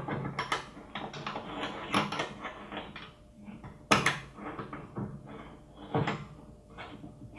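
Hands handling a coaxial jumper cable and its metal 7/16 connector: scattered clicks and knocks with rustling in between, the sharpest about four seconds in.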